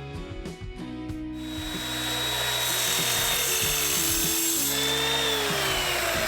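A power tool working aluminium angle bar. It starts about a second and a half in as a loud hissing whine, and its pitch sags toward the end as the load comes on. Background music plays throughout.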